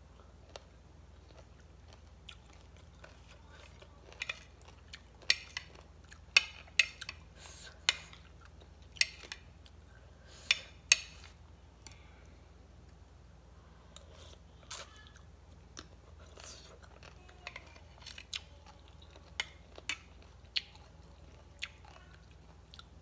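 Close-up chewing of crisp shredded mango salad: irregular sharp crunches, thickest and loudest around the middle, then sparser.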